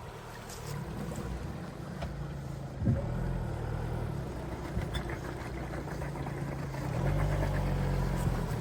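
A vehicle engine running at low revs as it moves through floodwater at a ford, steady, then louder about seven seconds in.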